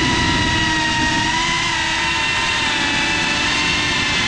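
Motors and propellers of a GEPRC CineLog 35, a ducted 3.5-inch cinewhoop FPV drone, give a steady high whine, recorded by the GoPro on board. The pitch shifts slightly with the throttle, over a rough low rumble.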